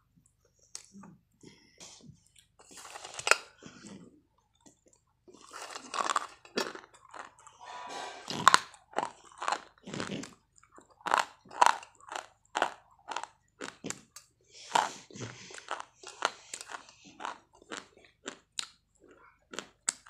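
Close mouth sounds of a person biting and chewing dry chalky white sticks: a long run of sharp, irregular crunches and snaps, thicker in a few clusters.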